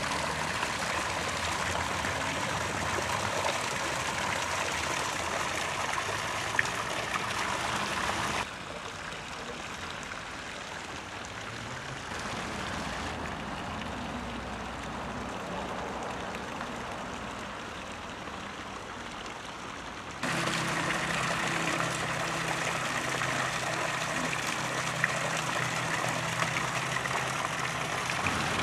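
Fountain water pouring from two stone spouts and splashing into its basin, breaking off suddenly about eight seconds in. A quieter outdoor background follows. From about twenty seconds in, a louder steady hum with low tones underneath sets in.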